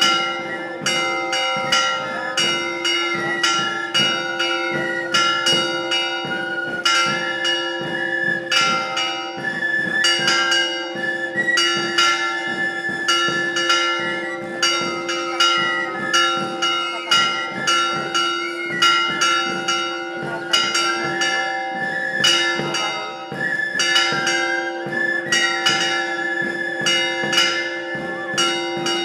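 Church bells ringing a fast festive peal. Strokes fall two or three times a second over long, overlapping ringing tones.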